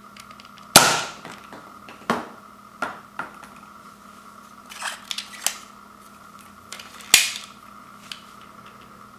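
Zuru X-Shot MK3 toy dart blaster firing, its spring mechanism releasing with sharp plastic snaps: the loudest about a second in and about seven seconds in, and another a little after two seconds. Lighter plastic clicks and clatters come in between.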